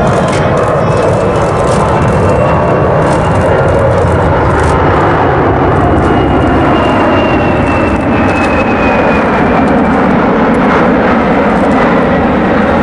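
Loud, steady jet noise from a Boeing C-17 Globemaster III's four turbofan engines as it flies by in a banking display manoeuvre. A high engine whine falls in pitch from about halfway through as the aircraft passes.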